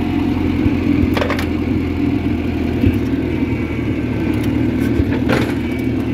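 International Harvester B414 tractor's 2.3-litre four-cylinder gasoline engine running at a steady speed while the loader is worked, with a couple of brief clanks, one about a second in and one near the end.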